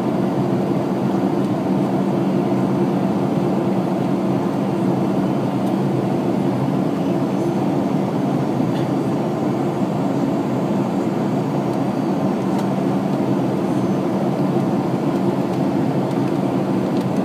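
Airliner cabin noise on the descent to landing: a steady drone of engines and rushing air with a low hum underneath.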